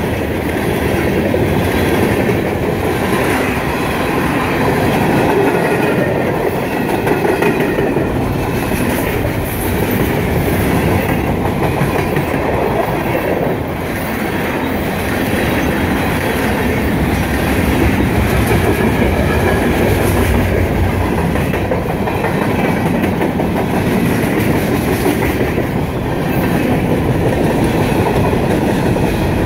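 Freight train cars rolling past at track speed, a steady sound of steel wheels running on the rails.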